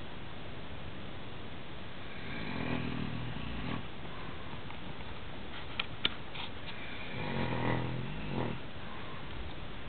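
A man snoring: two long snores about five seconds apart, each a low, pitched, rattling breath. Two sharp clicks come between them.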